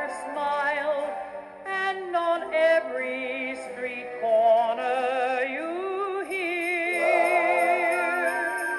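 Music with singing voices held in wavering vibrato notes over an instrumental backing, played back through a Lionel Polar Express baggage car's small built-in speakers from its MP3 sound board.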